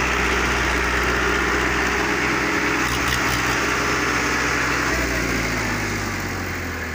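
Digitrac PP51i tractor's three-cylinder diesel engine running steadily under heavy load while pulling a three-bottom mouldboard plough. The engine's pitch sinks from about five seconds in as it labours against the plough, and it gets a little quieter toward the end.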